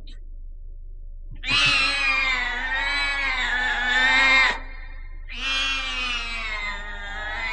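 Two long, wavering yowls, the first about three seconds and the second about two, over a steady low hum: a spooky animal-like yowling effect.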